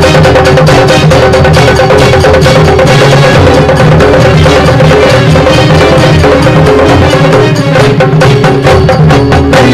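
Instrumental music with rapid, dense drumming over a steady held tone.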